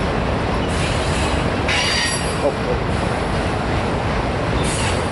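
Freight train's auto rack cars rolling past with a steady rumble of wheels on rail. Wheel squeal comes in three short bursts, the strongest about two seconds in.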